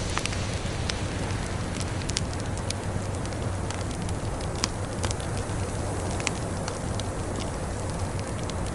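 Wood fire crackling in a fireplace, with irregular sharp pops, over a steady rushing background of snowstorm wind.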